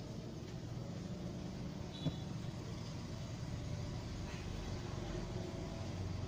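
Steady low background rumble with a single sharp click about two seconds in.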